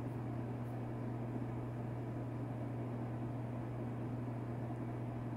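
A steady low hum over a faint hiss, unchanging throughout, with no distinct events.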